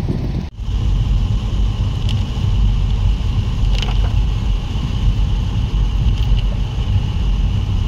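Car driving in heavy rain, heard from inside: a steady low rumble of road and wind noise. A brief cut about half a second in, after which a faint steady high tone runs under the rumble.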